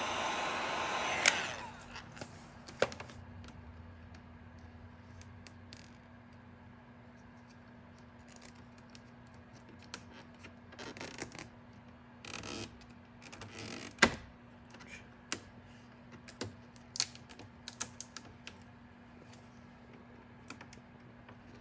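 Heat gun blowing a steady hiss that cuts off with a click a little over a second in. After that, quiet handwork: scattered light clicks and short rustles of fingernails and a small tool pressing vinyl wrap film into a car's front grille.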